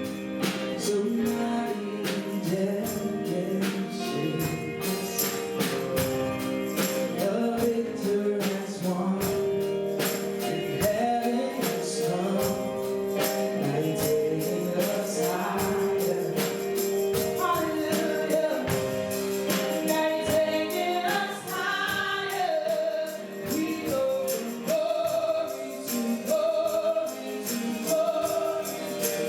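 Gospel worship music: held keyboard chords with a tambourine shaking in a steady rhythm, and voices singing over it in the later part.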